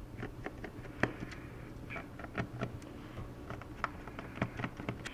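Light, irregular clicks and taps of a small screwdriver and screws as two screws are taken out of a laptop's bottom cover.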